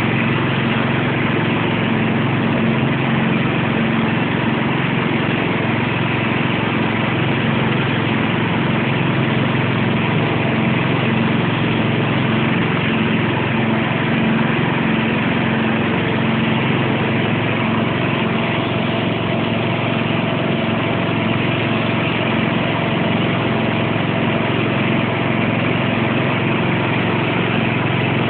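Sentinel garden tractor's engine running steadily at one even speed.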